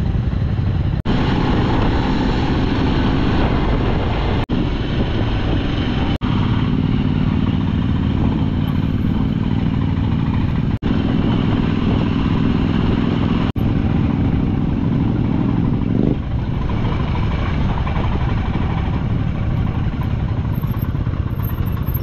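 Motorcycle engine running steadily while riding, with wind and road noise. The sound drops out for an instant about five times, and the engine note eases off about 16 seconds in.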